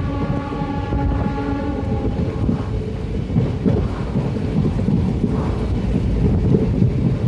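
Passenger train running, with a loud, steady rumble of the coach on the track. A horn sounds one held tone through the first two seconds, then stops.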